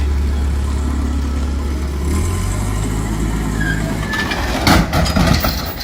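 A large engine running steadily with a deep hum that shifts about two seconds in, then several loud crashing knocks around five seconds in.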